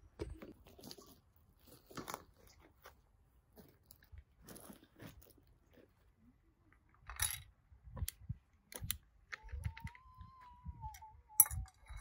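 Irregular crunching and clicking, like something being chewed or broken up, and a drawn-out cat meow near the end.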